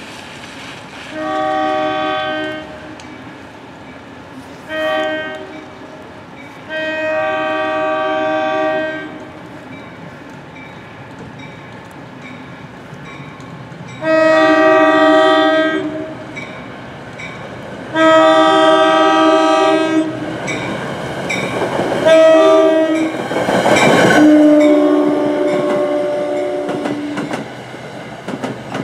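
NJ Transit push-pull train's multi-note air horn, sounded from the leading Comet V cab car, blowing three blasts (long, short, long) and then, from about halfway through, the grade-crossing signal of long, long, short, long. Under the last blasts the train's rumble and wheel clatter build as the Comet cars pass close by.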